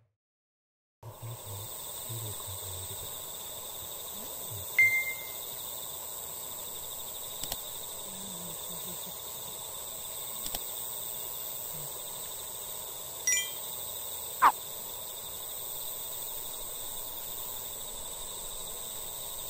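Evening outdoor ambience starting about a second in: a steady high-pitched trilling of insects. A few short chirps cut through it, the loudest about five seconds in, and a quick falling whistle comes near fourteen seconds in.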